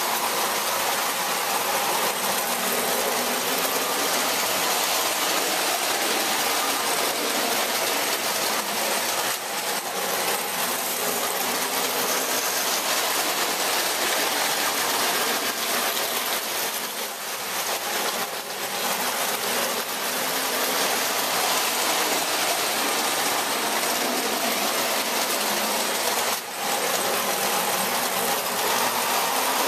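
Several model electric trains running together around a toy train layout: a steady mechanical running noise of their motors and wheels on the track, dipping briefly twice.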